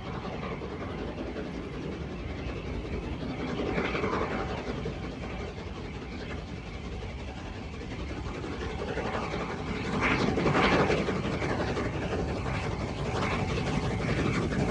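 LNER Peppercorn A2 Pacific steam locomotive hauling a heavy test train, drawing nearer; its sound grows louder and is loudest about ten seconds in.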